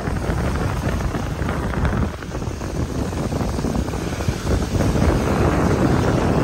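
Small sea waves breaking and washing up a pebble beach, with wind buffeting the microphone. The wash grows louder about five seconds in.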